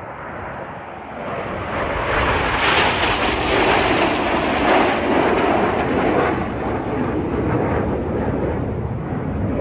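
Red Arrows' BAE Hawk jets flying past in formation: a loud jet rush that builds about a second in, peaks for a few seconds, then eases a little but keeps going.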